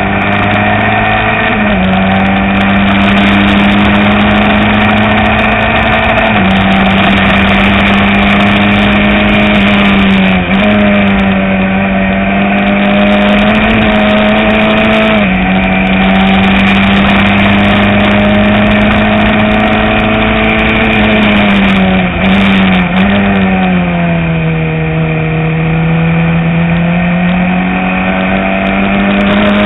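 Single-seater open-wheel race car's engine, heard on board, running loud at high revs. The note holds fairly steady with small drops at gear changes, dips briefly a couple of times about two-thirds of the way through, then falls lower and climbs gradually as the car accelerates again near the end.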